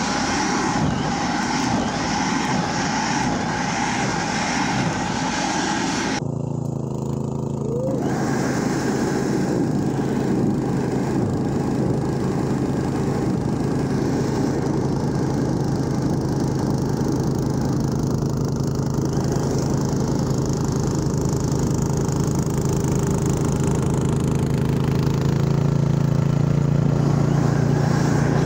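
Gas two-stage snowblower engines running steadily under load while blowing deep snow. The sound changes abruptly about six seconds in, to a steadier, deeper hum.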